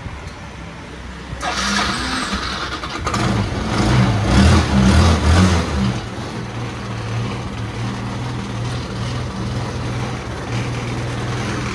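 Yamaha Cuxi 100 scooter's engine being started about a second and a half in. It catches about 3 seconds in, is revved briefly, then settles to a steady idle, with its damaged gearbox bearing newly replaced.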